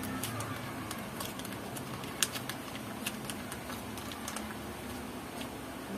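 A wok of chicken in tomato broth simmering, with scattered small ticks and pops over a low steady hum.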